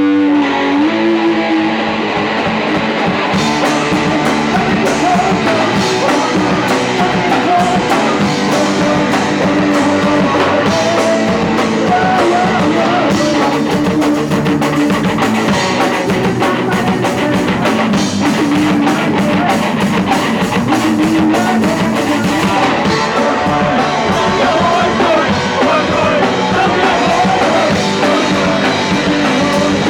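Punk rock band playing live and loud: a distorted electric guitar riff, joined by the drum kit with crashing cymbals about three seconds in.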